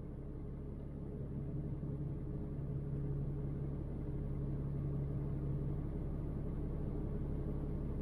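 Pickup truck engine idling, heard inside the cab as a steady low hum that grows slightly louder in the first couple of seconds.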